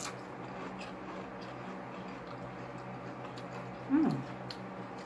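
Faint crunching of people chewing potato chips, a few sharp crunches scattered through, with a short hummed "mm" about four seconds in, over a steady low hum.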